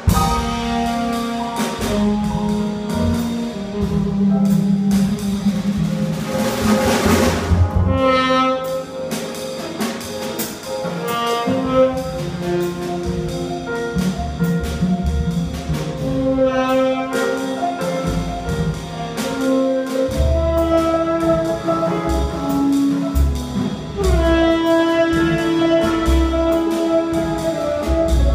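Live small-group jazz: a drum kit with a cymbal crash about six seconds in, then a tenor saxophone playing melodic lines over walking double bass and drums.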